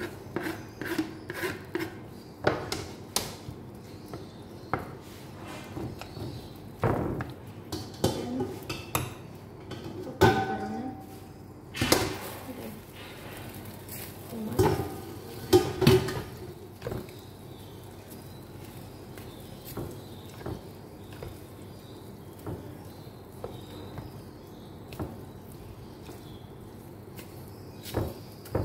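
Metal spoon clinking and scraping against a glass baking dish while pasta is mixed in it, a run of quick knocks that thins out about halfway through.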